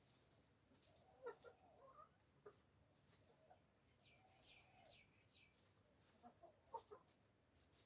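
Backyard hens clucking softly and faintly, in short, low, scattered calls, with a few light clicks and a brief run of higher chirps about halfway through.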